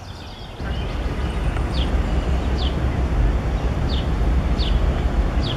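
Steady low rumble of outdoor background noise, with a small bird's short, high, falling call repeated five times, about 0.7 s apart.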